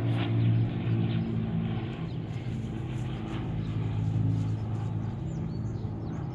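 Steady low engine drone with a constant pitch, with faint bird chirps near the end.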